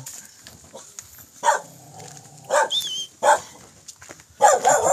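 A dog barking several times in short, sharp barks, the last ones coming in a quick cluster near the end.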